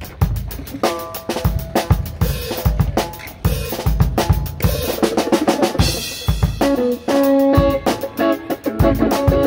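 Live rock band playing: a drum kit beating out a busy rhythm of kick, snare and cymbals, with the band's sustained guitar chords coming in about two-thirds of the way through.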